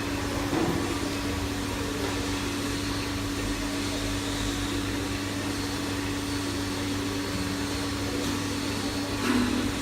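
Small induction melting furnace running: a steady electrical hum with a faint high whine over an even hiss.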